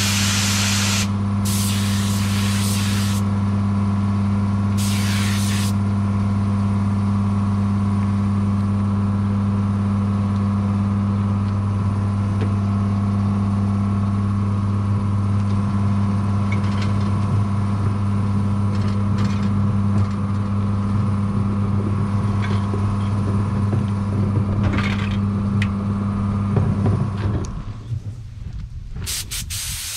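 Air compressor running with a steady hum, cutting out about 28 seconds in. A spray gun hisses in short bursts over the first six seconds as clear coat goes on, with a few fainter bursts later.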